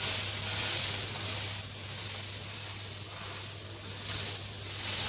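Small finger pancakes sizzling as they fry in a pan, a steady hiss that swells and eases every second or so, over a steady low hum.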